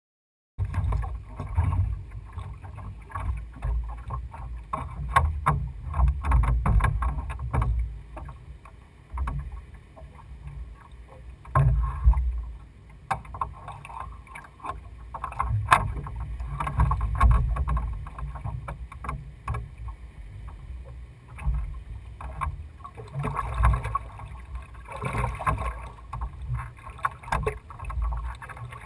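A wooden rowing dory being rowed on open water, starting about half a second in. Wind rumbles on the microphone, and water washes against the hull, with frequent sharp knocks from the oars working in their oarlocks.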